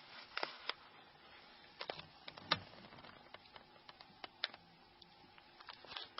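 Small, irregular clicks and taps of an SS93 opening tool prying at the plastic snaps of a Nokia N93 phone's capture key cover, the snaps unlocking.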